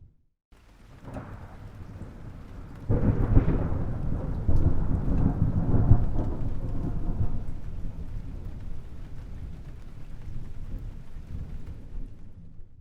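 Thunder: after a brief silence a low rumble builds, then a loud clap about three seconds in rolls into a long, deep rumble that slowly fades away.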